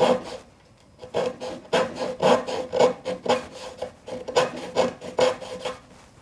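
Japanese-style flush-cut pull saw (Z-Saw) rasping back and forth in short quick strokes, about two to three a second, as its thin blade trims a proud hardwood inlay flush with a maple cutting board. The strokes pause briefly about half a second in.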